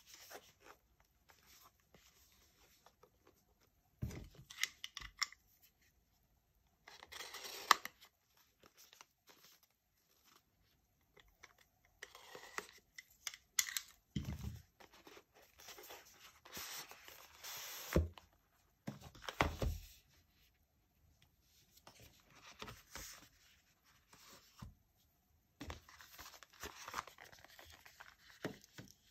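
Smartphone retail box being unpacked by hand: bursts of tearing, crinkling and rustling of packaging, with a few sharp knocks of cardboard being handled.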